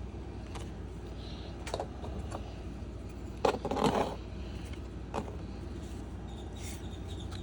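Trading cards being handled and flipped through: scattered light clicks and rustles, with one louder rustle about three and a half seconds in, over a steady low hum.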